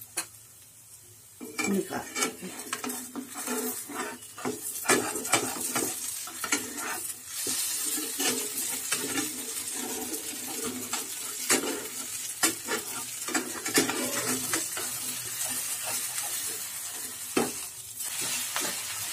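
A vegetable-batter pancake sizzles in a non-stick frying pan while a spatula scrapes and taps against the pan again and again to loosen it, starting about a second and a half in. Near the end it is turned over.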